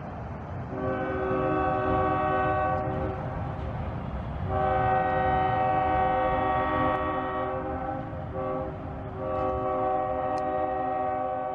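Diesel locomotive's multi-tone air horn sounding three blasts, the middle one the longest, over the low rumble of the passing train.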